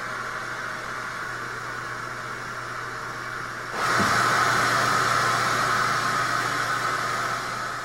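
Static hiss from a television tuned to a channel with no signal, steady white noise over a faint low hum. It grows clearly louder about four seconds in.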